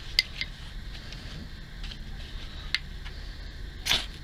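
Spine of a Buck knife scraped down a ferrocerium rod: a few light ticks as the blade is set against the rod, then one sharp scraping strike near the end that throws sparks into the tinder.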